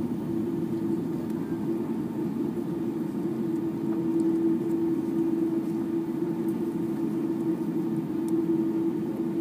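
Airbus A330-200 cabin noise while taxiing, heard inside the cabin: a steady low drone from the jet engines at low taxi power, with one held low tone.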